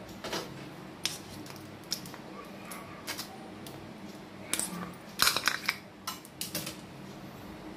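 Light clinks and taps of kitchen utensils against steel bowls and the hard, set sohan halwa as it is freed from its moulds, in scattered strokes with a quick cluster about five seconds in. A faint steady hum runs underneath.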